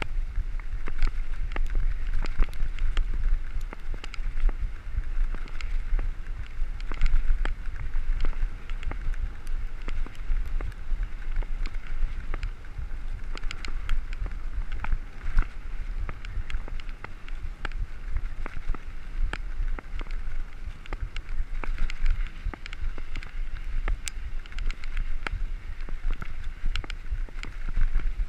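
Mountain bike rolling fast over a gravel forest track. Wind rumbles steadily on the microphone, with tyre noise on the gravel and frequent sharp clicks and rattles as the bike runs over bumps.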